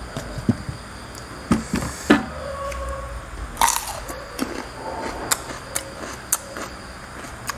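Eating at a dinner table: scattered small clicks and clinks of dishes, with a short louder noise about three and a half seconds in as cucumber is dipped and eaten.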